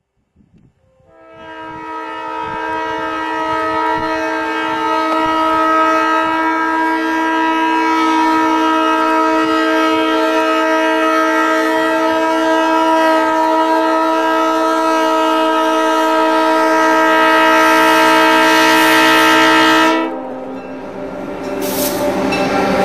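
A diesel locomotive's multi-chime air horn sounds one long, unbroken blast of nearly twenty seconds, the warning for a grade crossing. The horn cuts off suddenly, and the train's wheels rumble and clatter over the rails as the locomotives pass.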